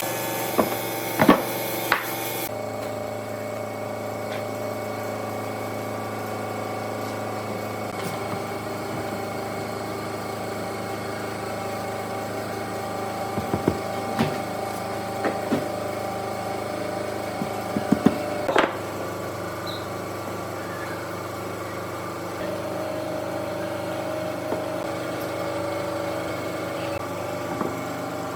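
In a woodworking shop, a power tool's sawing noise cuts off about two seconds in. A steady machine motor hum carries on after it, with scattered knocks and taps of wood and tools, clustered near the start and again midway.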